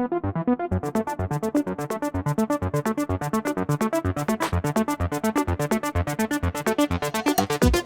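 Background electronic dance music: a fast pulsing synthesizer riff that opens up brighter about a second in, building toward a drop.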